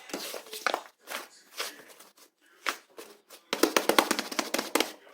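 Fluffy whipped-cream-textured slime being squished and pressed by hand, giving a string of sharp pops and crackling clicks. A dense run of crackles starts about three and a half seconds in and lasts over a second.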